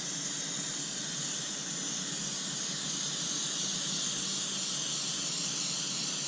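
Airbrush spraying a light mist of paint: a steady, even hiss of air with no break, over a low steady hum from the air compressor feeding it.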